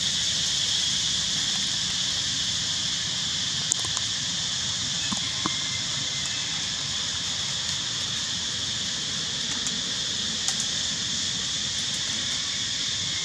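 A steady, high-pitched insect chorus buzzing without a break, over a low background rumble, with a few faint clicks about four, five and ten seconds in.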